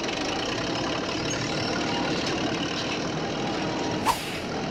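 Cartoon sound effects: a steady engine rumble under a swinging wrecking ball, then a single short sharp hit about four seconds in as the ball strikes a concrete monument.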